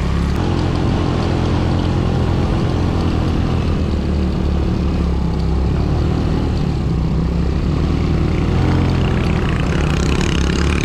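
Motorcycle engine pulling steadily under load up an off-road climb, its pitch shifting a little a few times.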